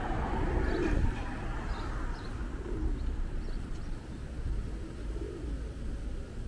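Feral pigeons cooing softly a few times over a steady low rumble.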